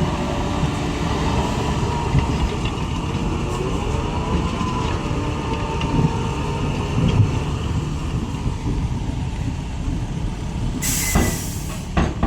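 Heavy diesel earthmoving machinery running steadily, with faint metallic squeals and clanks. About eleven seconds in comes a sharp burst of air hiss lasting about a second, then two knocks.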